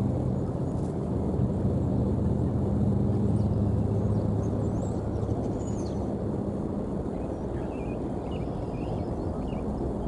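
Steady low drone of a distant engine, which eases off after about halfway. Faint short bird chirps come in during the last few seconds.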